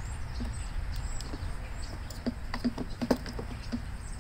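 Plastic engine shroud of an Echo PB500H leaf blower being handled and worked loose, with a run of light clicks and knocks about halfway through, over a low rumble.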